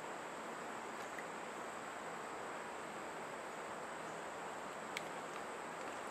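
Steady outdoor ambience: an even hiss with a thin, high, continuous drone, and one short click about five seconds in.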